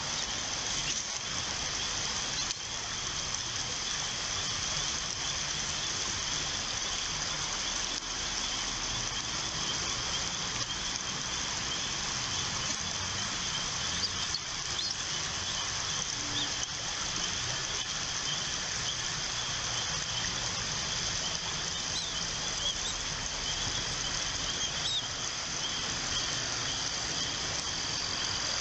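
Outdoor ambience from a bald eagle nest camera: a steady high insect chorus, like crickets, over a constant hiss, with a few brief faint chirps about halfway through and again later on.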